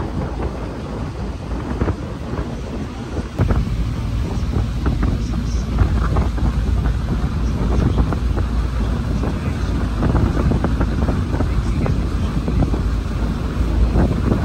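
Wind buffeting the microphone on a moving boat, over the rumble of the boat running and water rushing along the hull; it gets louder about three seconds in.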